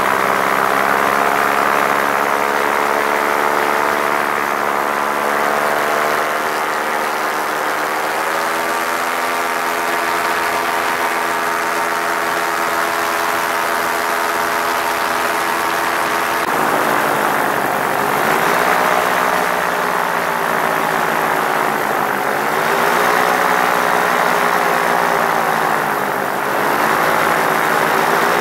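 Paramotor engine and propeller running in flight. The pitch steps up slightly about eight seconds in and holds steady, then rises and falls several times as the throttle is worked through the second half.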